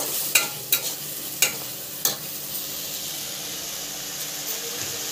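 Masala paste sizzling in hot oil in a kadai while a spatula stirs it, with four sharp clicks of the spatula against the pan in the first two seconds. The masala is being fried until its oil separates.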